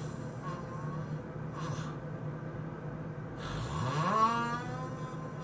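A person snoring in sleep, with short breaths early on and then, about three and a half seconds in, one loud snore whose pitch rises steeply and then holds for about two seconds.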